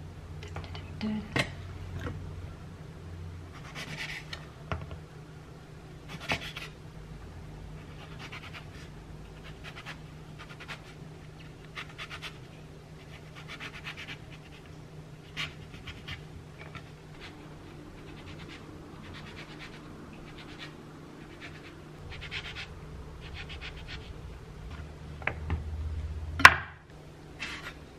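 Kitchen knife slicing through pomelo peel and pith on a wooden cutting board: a run of short scraping strokes every second or two, some drawn out, over a low steady hum. A sharp knock near the end is the loudest sound.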